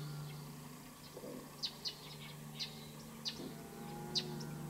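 Short, high bird chip notes, about six of them at irregular intervals, over a steady low hum.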